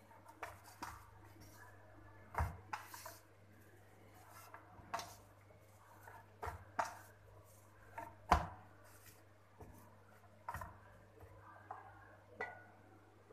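Pizza dough being kneaded by hand in a stainless steel bowl: quiet, irregular knocks and thumps of the dough and hands against the metal, with rubbing and squishing between them. The two loudest thumps come about two and a half seconds and eight seconds in.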